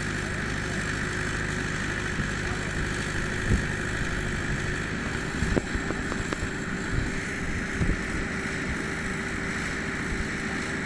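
Power unit of a butt-fusion welding machine running steadily with a constant engine-like drone and hum, during the heating stage of welding large HDPE pipe. A few faint knocks sound over it.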